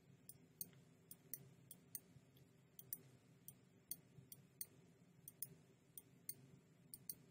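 Faint computer mouse clicks, short and sharp, a few a second and often doubled, as anchor points are placed one after another with Photoshop's pen tool, over a low steady hum.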